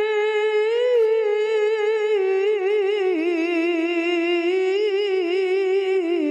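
A woman's voice reciting the Quran in melodic tilawah style through a microphone, drawing out one long vowel. The note is held steady at first, then wavers through ornaments, stepping down in pitch about three seconds in and again near the end.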